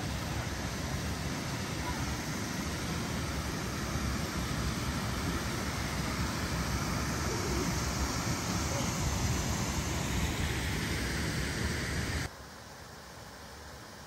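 Steady rushing of water over a small river waterfall and rapids, with a flickering low rumble underneath. About twelve seconds in the sound drops suddenly to a much quieter hiss.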